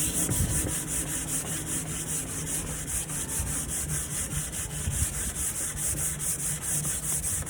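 Sandpaper rubbing over the surface of a nightstand in quick, even back-and-forth strokes, about five a second, scuffing the old finish so primer and paint will adhere.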